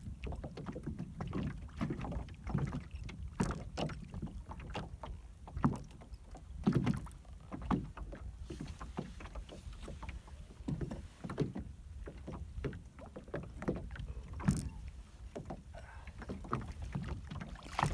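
Water slapping against a small boat's hull, with many irregular knocks and splashes as a hooked channel catfish is reeled up beside the boat, over a steady low rumble.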